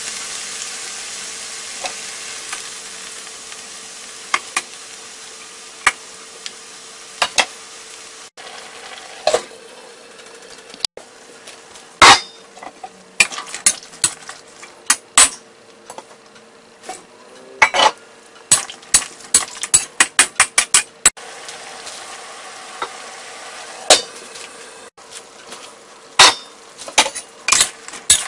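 Chicken wings sizzling in hot oil in a steel wok, the sizzle dying down over the first few seconds. Then a wok spatula knocks and scrapes against the wok again and again as the food is stirred in the boiling sauce, with sharp clanks in quick runs.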